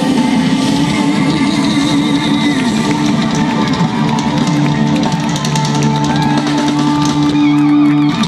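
Live rock band playing electric guitar over a drum kit, with no singing. The chord is held out over the last couple of seconds while the cymbals keep going.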